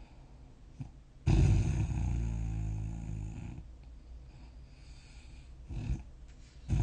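A person snoring in their sleep. One loud snore starts abruptly about a second in and fades out over about two seconds. A short, quieter one comes near the end, and the next snore begins right at the end.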